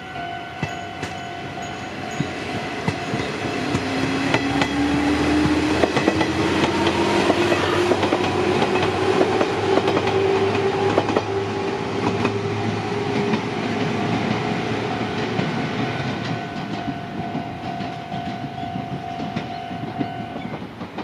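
Electric train passing over a level crossing: its motor whine rises steadily in pitch from about four seconds in as it gathers speed, with wheels clicking over rail joints. The crossing's warning bell rings steadily throughout and stops near the end.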